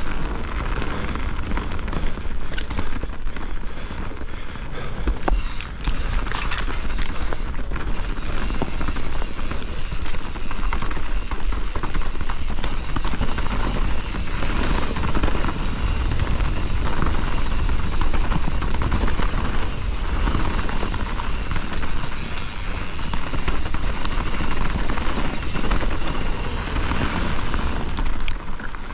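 Privateer 161 enduro mountain bike descending a rocky dirt trail: tyres rolling over dirt and rocks and the bike rattling with sharp knocks over bumps, under a steady heavy rumble of wind on the camera microphone.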